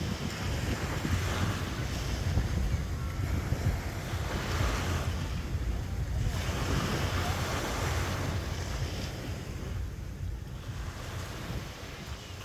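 Sea waves washing up the sand, in several surges a few seconds apart that die down near the end, with wind rumbling on the microphone.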